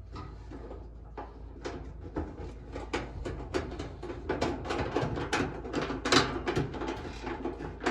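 Sheet-metal dryer cover clattering and tapping in irregular knocks as it is worked into position over the heating element to line up its screw holes, getting busier and louder after a few seconds, over a steady low hum.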